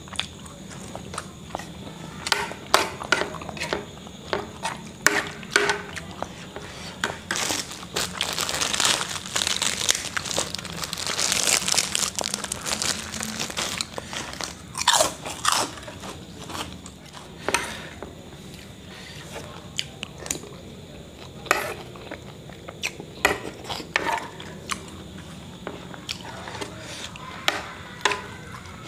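Close-up eating sounds: a metal spoon clinking and scraping on a plate, chewing, and crisp bites of a crunchy fried snack, with the crunching densest in the middle.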